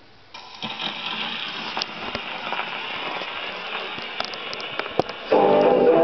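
Needle set down on a spinning 78 rpm shellac record on a wooden-horn gramophone: a steady hiss and crackle of surface noise from the run-in groove, with scattered clicks. About five seconds in, the 1920s dance band recording starts playing loudly through the horn.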